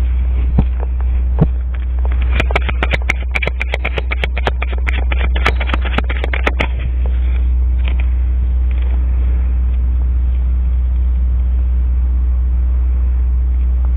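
Tarot cards being shuffled: a rapid run of card clicks and flaps from about two to seven seconds in, over a steady low rumble.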